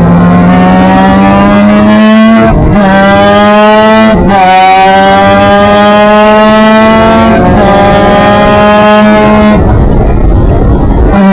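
Formula Mazda race car's rotary engine heard loud from on board, accelerating through the gears: the pitch climbs steadily and drops sharply at upshifts about two and a half, four and seven and a half seconds in. Nearly ten seconds in, the engine note falls away as the driver comes off the throttle.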